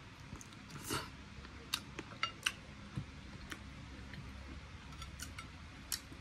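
Chewing a crispy air-fried chicken wing: scattered soft crunches and wet mouth clicks, about a dozen short ones, a little louder about a second in.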